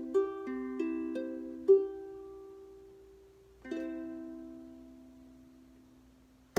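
Ending of a song on an acoustic plucked string instrument: a few picked notes, then a final chord a little over halfway through that rings out and slowly fades. A short click comes at the very end.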